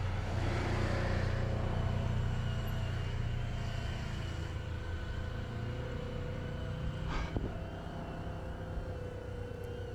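Steady low rumble of wind and road noise on a bicycle rider's action-camera microphone while riding, with a faint steady whine above it and a single sharp click about seven seconds in.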